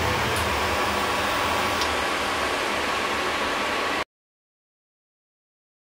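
Grated carrots in ghee sizzling steadily in a covered pan as they steam. The sound cuts to dead silence about four seconds in.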